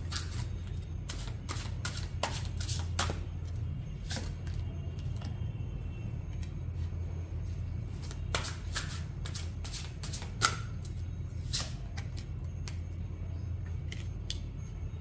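Tarot cards being handled and laid down on a wooden table: a run of irregular flicks and taps, the sharpest about ten and a half seconds in.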